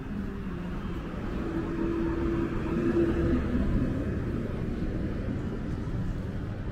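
Street traffic: a motor vehicle's engine rumbling steadily as it goes by, loudest about three seconds in.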